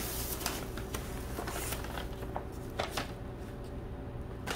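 Soft rustling and scattered light clicks of shipping packaging being handled as a small potted plant is eased out of its box, thinning out about halfway through.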